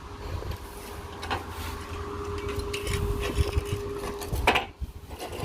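Small MIG welder (Mig 125) at work: a steady hum with scattered crackles, the hum cutting off about four seconds in and followed by one sharp crack. The wire feed is faulty, running too fast and stopping and starting so that the wire burns off.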